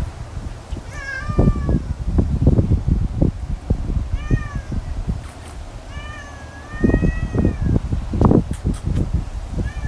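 A cat meowing three times, two short calls and a longer drawn-out one, over irregular low thumps and rumble.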